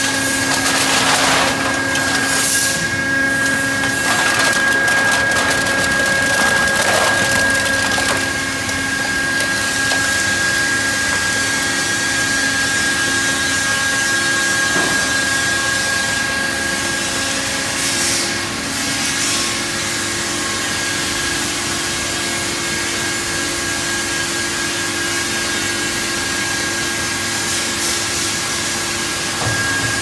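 McIntyre M20 can and metal baler running, its hydraulic drive making a steady high tone over a continuous noise. Aluminium cans crunch and crackle as they are pressed, most in the first eight seconds and again briefly about eighteen seconds in.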